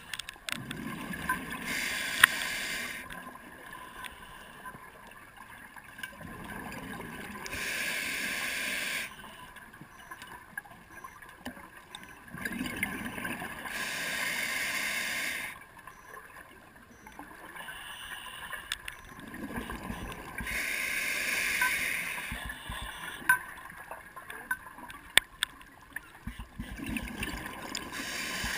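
Scuba regulator breathing heard underwater: a rush of exhaled bubbles about every six to seven seconds, each lasting two to three seconds, with quieter stretches between and a few sharp clicks.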